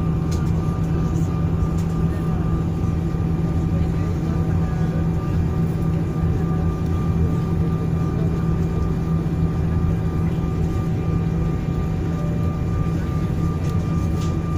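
Airbus A319 cabin noise with the jet engines running as the airliner taxis: a steady low drone and rumble with a couple of thin, steady whining tones above it.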